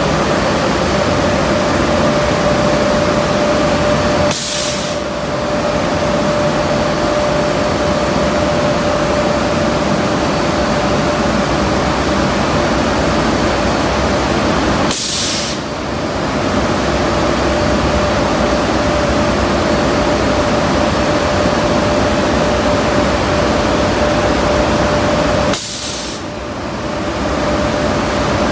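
Steady, loud blower or ventilation noise with a steady hum, broken three times, about ten seconds apart, by a short, sharp hiss of air, each followed by a brief dip in the noise.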